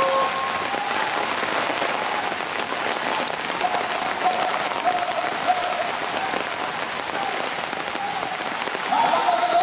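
Heavy rain pouring onto a river, a dense steady hiss of drops striking the water. A faint drawn-out tone comes through for a few seconds in the middle.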